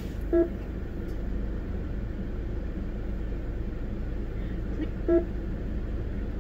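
A car's engine idling, a steady low rumble heard from inside the cabin, with two short beeps, one near the start and one about five seconds later.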